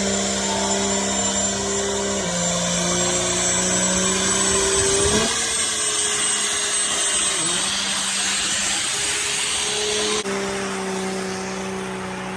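Diesel pickup truck engine held at high revs during a burnout: a steady loud drone with a thin high whine above it. The pitch steps down about 2 seconds in, shifts again around 5 seconds, and steps back up about 10 seconds in.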